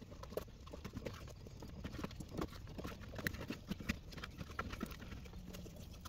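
Black cloth wiring-harness tape being unrolled and wrapped around a bundle of wires: faint, irregular ticks and rustles as the tape peels off the roll and the wires are handled.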